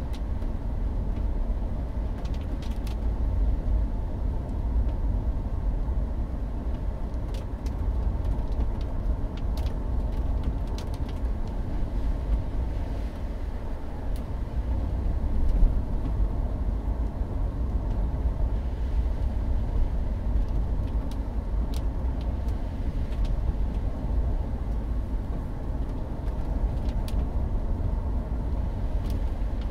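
Steady in-cabin road noise of a Mercury Grand Marquis driving on a wet road: a low rumble of engine and tyres, with faint scattered ticks.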